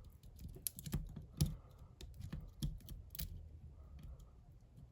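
Irregular small metal clicks and taps of a lock pick working the pins inside a bike lock's cylinder, under light turning tension, as the pins are set one by one.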